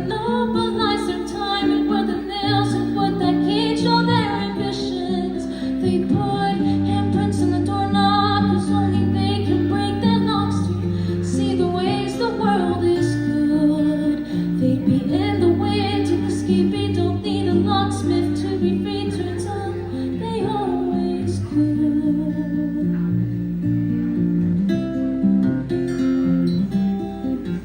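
Acoustic guitar strummed while a woman sings. The singing stops about three quarters of the way through and the guitar strumming continues alone.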